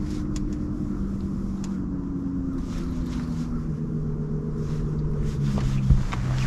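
A boat motor running steadily, its hum sliding slowly lower in pitch, with a single knock about six seconds in.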